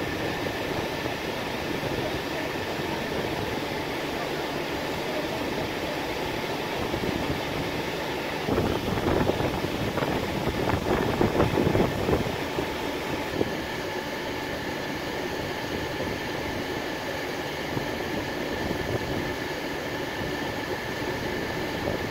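Steady mechanical running noise with a thin steady whine over it, growing louder and rougher for about four seconds near the middle.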